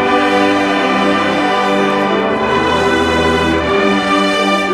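Marching band brass section, with sousaphones, trumpets and trombones, playing a slow gospel tune in long held chords, the low horns swelling in about the middle.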